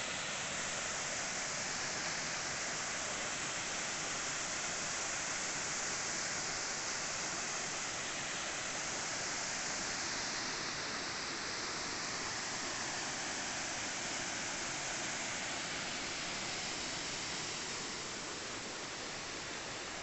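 Waterfall pouring over rock slabs into a pool: a steady rushing of water that eases slightly near the end.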